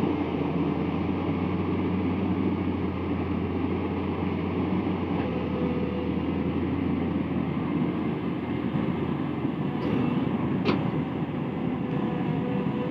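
Truck engine running steadily with a constant low hum, and a short click about ten seconds in.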